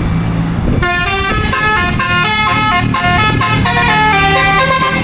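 Telolet basuri musical horn on a bus playing a fast tune of stepped, chord-like notes, starting about a second in, over the bus's engine running.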